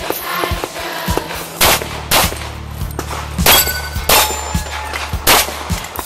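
A semi-automatic pistol firing a string of shots, about five loud ones at irregular gaps of half a second to a second.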